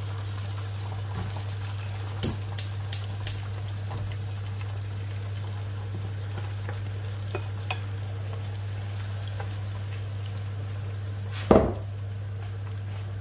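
Boiled peanuts frying in a pan of hot oil, a steady sizzle over a low hum. There are a few light utensil clicks against the pan about two to three seconds in, and a louder knock on the pan near the end.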